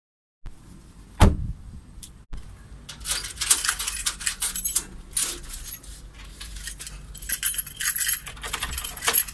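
A bunch of keys jangling in clusters as a hand unlocks a steel security grille and the front door's deadbolt, with a single sharp metal clack about a second in.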